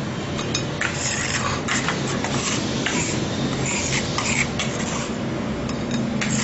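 A knife blade scraping and tapping crushed crunch-bar crumbs across a stone countertop to gather them into a pile, in short irregular strokes over a steady low hum.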